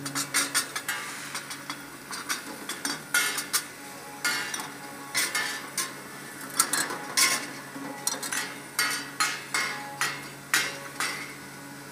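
Glass bottles clinking and knocking against each other and the stainless-steel guide rails of a rotating bottle unscrambler turntable, in irregular clusters of clinks, over a steady low hum.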